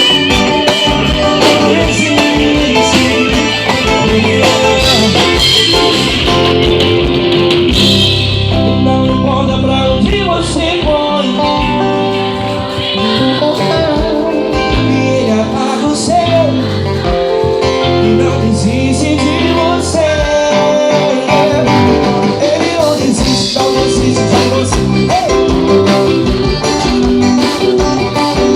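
Live gospel band music: guitars and band playing at a steady loud level, with a singing voice over them.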